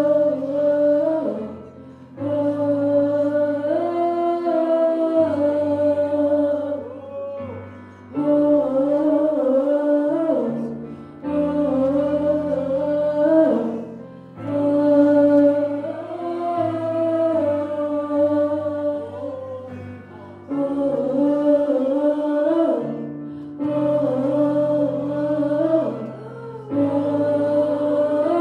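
Worship singing in long, drawn-out phrases of a few seconds each, with short breaks between, over held low chords that change with each phrase.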